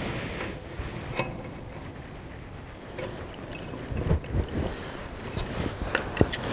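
Scattered light metallic clicks and clinks of steel hand tools on a galvanised fence strainer's clamp: spanners on the clamp bolt, then pliers on the wire. Most of the clicks come in a cluster around the middle, with two sharp ones near the end.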